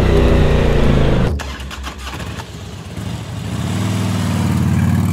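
Motorcycle engine running while riding, cut off abruptly about a second in. After a quieter stretch, a motorcycle engine note builds up steadily and fades out near the end.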